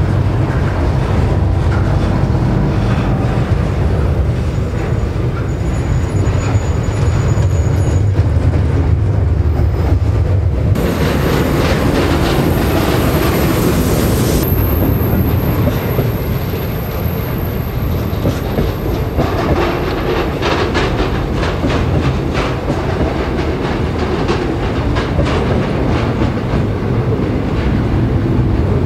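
Container wagons of a freight train rolling past on a curve: a steady low rumble with wheels clattering over the rail joints in a rapid clickety-clack.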